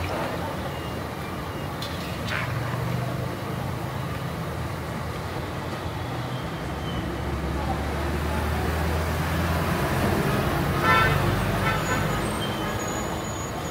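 Street traffic running steadily, with a vehicle horn sounding briefly about eleven seconds in.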